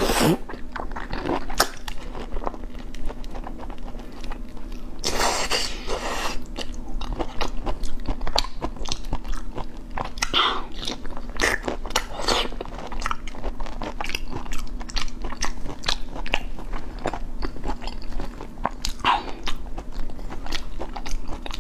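Close-miked eating of a large cooked prawn: biting, chewing and sucking at the shell and meat, with many short wet clicks and smacks and one longer, louder stretch about five seconds in.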